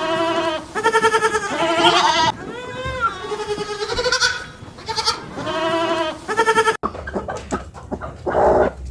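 Goats bleating: a run of repeated, quavering bleats that cuts off suddenly about two-thirds of the way through, followed by quieter scattered sounds.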